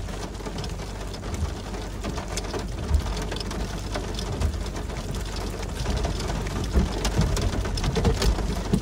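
Rain striking a car's windshield and body, heard from inside the cabin, with scattered sharper drop hits over a steady low rumble.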